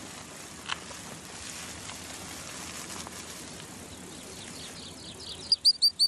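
Steady outdoor nature ambience, a faint even hiss. Near the end comes a quick run of four short, high-pitched chirps.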